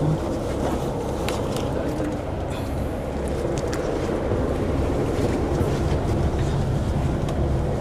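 Bus engine running with a steady low rumble, heard from inside the passenger cabin, with scattered small clicks and rattles.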